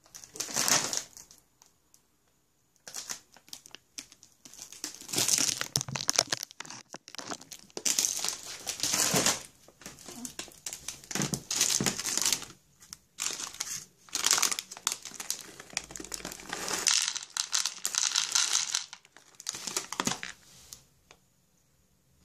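Plastic bag of FELIX Crunchy & Soft dry cat food crinkling in repeated bursts as it is handled.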